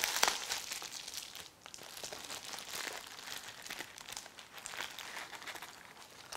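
Plastic bubble wrap being unfolded and pulled open by hand, crinkling and crackling in irregular bursts, loudest just at the start.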